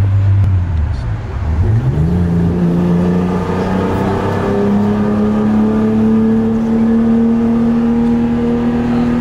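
Toyota Cressida's straight-six engine, running on vegetable oil as its engine oil, heard from inside the cabin. The revs dip about a second in, then climb quickly and settle into a steady drone that slowly rises as the car accelerates.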